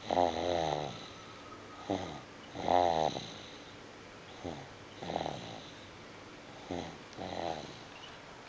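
Snoring in a steady rhythm: four loud, pitched, rasping snores about two and a half seconds apart, each with a shorter, fainter one just before it.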